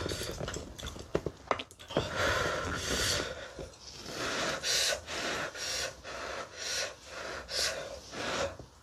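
A woman's repeated sharp breaths in and out through the mouth, hissing and puffing to cool her mouth from very spicy kimchi, with a few light clicks of chopsticks and spoon early on.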